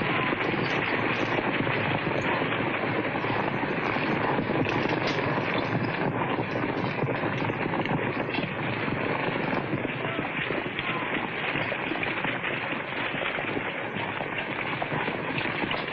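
Hoofbeats of many cavalry horses riding fast over a dirt trail: a dense, steady clatter of hooves.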